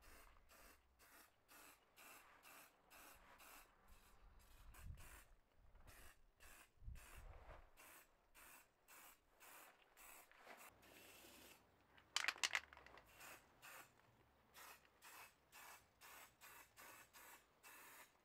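Aerosol spray paint can hissing faintly in short repeated bursts, about two a second, as paint is sprayed on. About twelve seconds in there is a brief, louder clatter.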